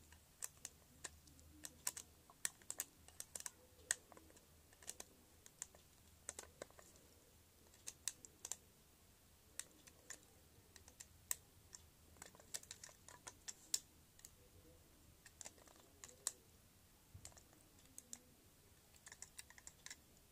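Small screwdriver turning the battery-cover screw on a plastic Trackmaster Hyper Glow Ashima toy engine, with fingers handling the toy: faint, irregular clicks and ticks.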